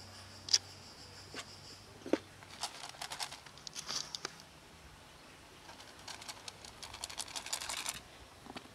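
Clear plastic food container being handled for stray cats: two sharp clicks, then two stretches of crackly rattling and rustling, one around three to four seconds in and a longer one near the end. A steady high insect chirr is heard for about the first second.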